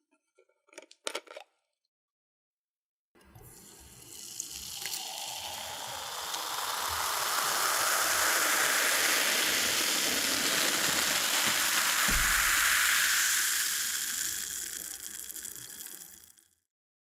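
Cola being poured: one long pour that starts about three seconds in, builds, then tapers off and stops shortly before the end. A few small clicks come just before it, about a second in.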